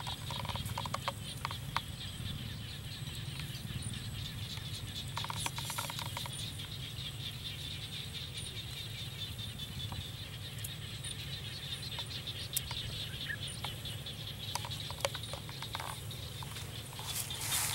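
Insects chirring steadily in the grass over a low steady rumble, with scattered light clicks and rattles from a wire fan guard being handled and set down. The clicks come in small clusters about five seconds in and again near the end.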